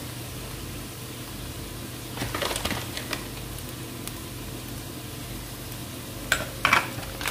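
A spoon and spatula clink and scrape against a nonstick wok as flour is added to softened onions, with a few scattered knocks about two seconds in and the sharpest knocks near the end, over a steady low background hum.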